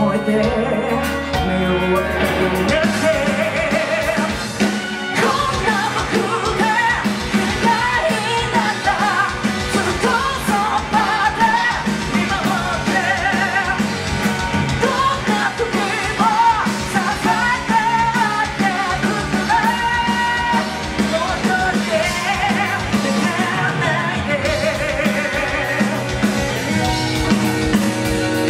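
Live rock band playing loudly: electric guitars through Marshall amplifiers, bass and drum kit, with a singer's voice over the band.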